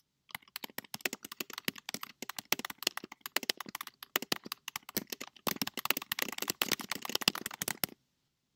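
Fast typing on a computer keyboard: a long, quick run of key clicks with a short pause about halfway through, stopping near the end.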